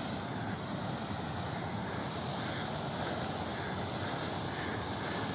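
Steady, even rushing noise with no distinct events, the kind heard from wind or falling water in the mountains.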